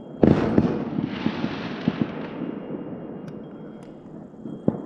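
Fireworks going off around a city: a loud bang about a quarter second in that trails off over a couple of seconds, then scattered pops, with one more sharp bang near the end.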